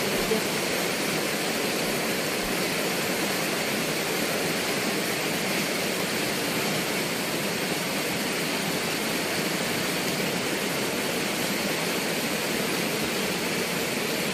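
Steady rushing of a river flowing past, an even noise with no change in level.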